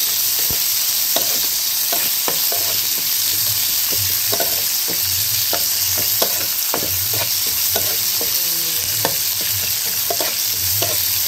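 Sliced onions frying in hot mustard oil, a steady sizzle, while a metal spatula stirs them and clacks and scrapes irregularly against the metal pan. The onions are being fried towards golden brown.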